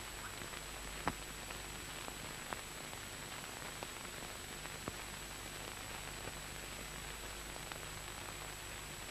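Steady hiss of an old film soundtrack with a thin, faint high tone running through it, and a few faint clicks, the clearest about a second in.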